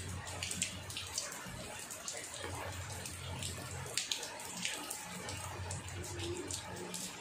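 Knife cutting up a grilled whole chicken: scattered short clicks and wet, squelching sounds, over a low steady hum.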